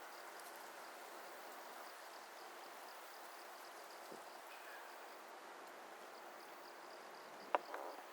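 Quiet outdoor ambience: a steady soft hiss with crickets chirping in a fast, regular pulse. A single sharp click or knock sounds near the end.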